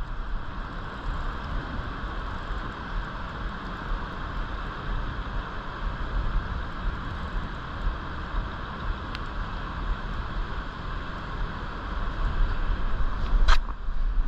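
Steady rush of flowing river water, with wind rumbling on the microphone. There is a sharp click near the end.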